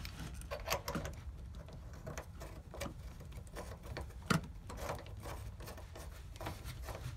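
Brass garden hose coupling being threaded by hand onto a water heater's drain valve: irregular small metallic clicks, scrapes and rattles, with one sharper knock about four seconds in.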